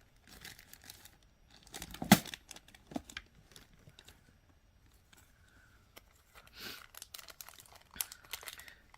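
Hands rummaging through small jewelry-making supplies: rustling and crinkling of packets with scattered light clicks, the sharpest about two seconds in, and a few more rustles near the end.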